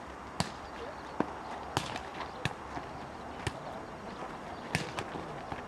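Volleyball being struck during play: a string of sharp slaps at uneven intervals, about seven in all, over a low background murmur.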